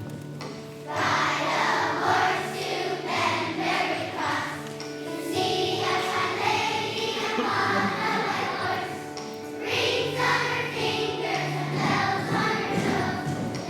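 Young children's choir singing a song over steady instrumental accompaniment, with the voices coming in about a second in.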